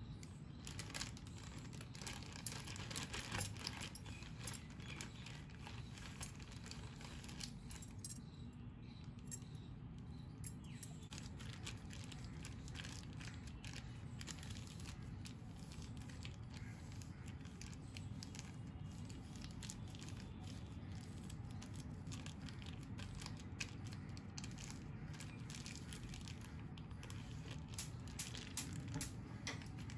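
Plastic zip-top bag crinkling and rustling as it is handled and pressed flat by hand to push the air out, with light clicks from metal tongs against a glass bowl near the start. A steady low hum runs underneath.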